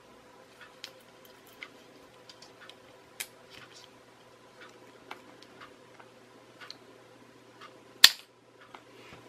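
Small irregular plastic clicks and taps from handling a toy RC helicopter's gearbox and motor assembly and fitting it into its plastic fuselage. One sharp, much louder click comes about eight seconds in, over a faint steady hum.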